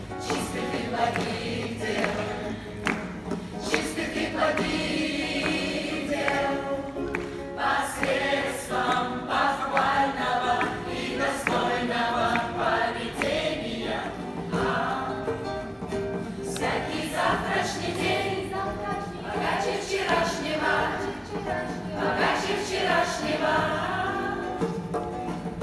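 A group of men and women singing a song together in chorus.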